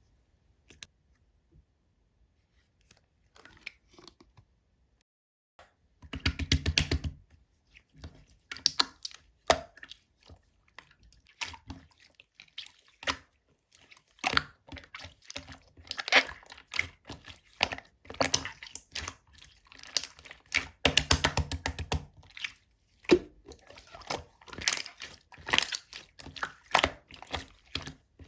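Slime being squished and pressed by hand, giving dense, irregular sticky clicks and crackles, with louder flurries of rapid squelching. The first few seconds are nearly quiet, with only a few faint ticks.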